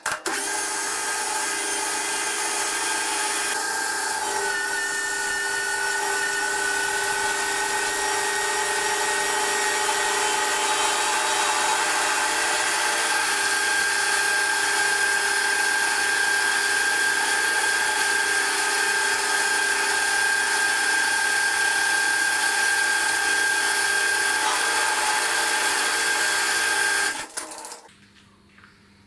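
Metal lathe turning a round metal blank, sped up four times: a steady high-pitched machine whine with cutting hiss. It cuts off suddenly near the end.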